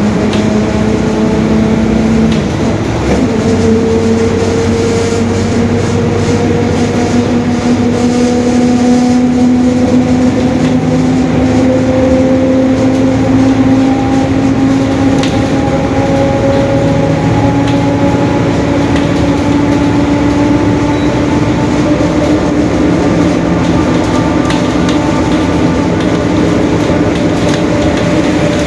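Mercedes-Benz OF-1721 city bus under way, its differential whining: a steady tone that climbs slowly in pitch as the bus gathers speed, over engine and road noise. The whine breaks off briefly about two seconds in, then resumes and keeps rising.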